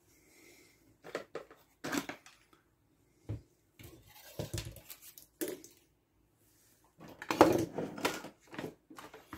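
Hands handling plastic electrical parts and power cords on a workbench: scattered light clicks and knocks, with a busier clatter about seven to eight and a half seconds in.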